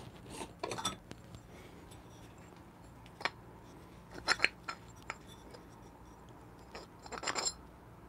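Light metal clinks and scrapes of a DF64 single-dose coffee grinder's aluminium top burr carrier being twisted off and lifted out by hand: a few sparse clicks, a pair of clinks about four seconds in, and a short cluster near the end.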